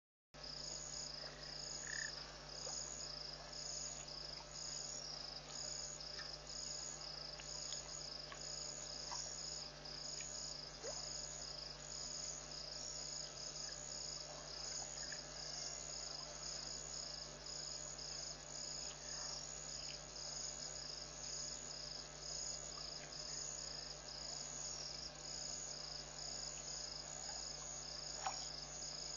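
Night insect chorus: a high, evenly pulsing chirring over a steady low hum, with a few faint short chirps and a small click near the end.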